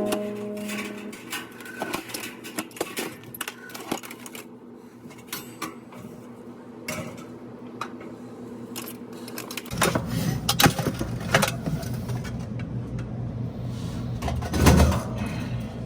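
Scattered clicks, taps and small metallic knocks of tools and parts being handled during electrical work. About ten seconds in, a steady low machine hum starts underneath.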